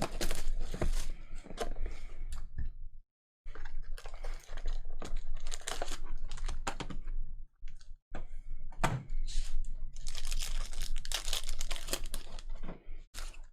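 Basketball trading-card packs being torn open and their cards flicked and shuffled against one another: a quick, busy run of dry clicks, snaps and rustles that breaks off twice for a moment.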